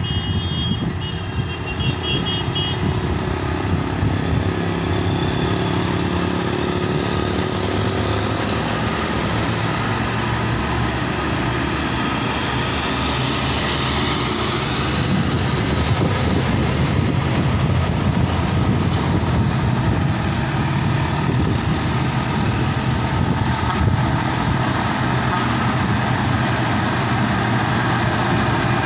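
Mixed hill-road traffic: heavy diesel trucks running, with cars and motorcycles passing, making a steady rumble that grows a little louder in the second half. A quick run of high beeps sounds in the first couple of seconds.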